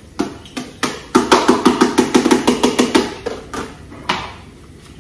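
Sharp knocks of a utensil against a stainless steel kitchen container: a few single knocks, then a fast even run of about nine knocks a second for about two seconds, then a few more.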